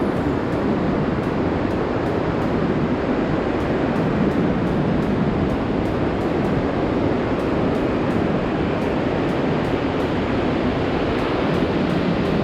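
Sea surf washing onto a beach, a steady rushing noise.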